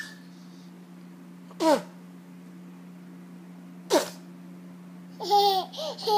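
Two short, high squeals, each falling in pitch, a couple of seconds apart, then a young child babbling in a sing-song voice near the end, over a steady low hum.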